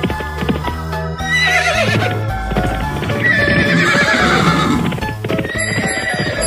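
Cartoon horse sound effects: two long, wavering whinnies and the clip-clop of galloping hooves, over background music.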